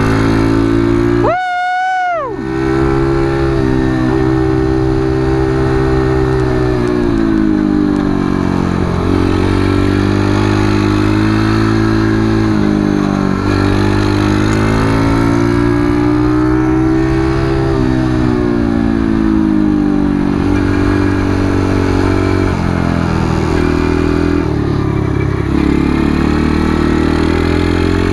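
Small motorcycle engine running hard while lapping a track, its pitch rising and falling slowly as the rider accelerates and eases off through the corners. About a second in the engine sound drops out briefly under a single falling whistle-like tone.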